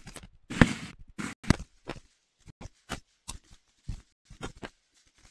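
Irregular rifle gunfire from several carbines on a firing line: a rapid run of sharp shots, the loudest about half a second in and another strong one about a second later.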